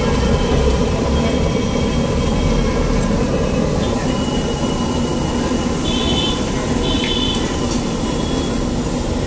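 Steady rumbling noise of a street-food stall, with vegetables steaming on a large hot griddle. Two short high beeps, about a second apart, come past the middle.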